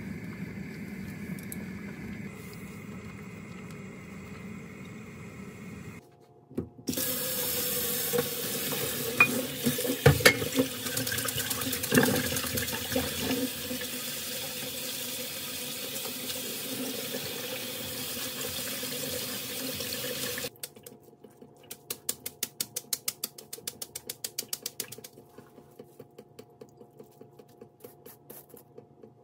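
Cold tap water running hard into a steel sink through a mesh strainer as cooked buckwheat soba noodles are rinsed by hand. Before it, a quieter steady hiss from the pot of noodles boiling on the gas stove. The water stops about two-thirds of the way through, leaving a run of light, quick, regular ticks.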